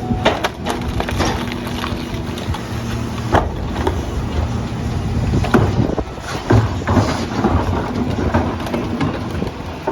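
CNG Mack LR garbage truck with a McNeilus split rear-loader body running, with repeated knocks and clatters over the steady engine sound.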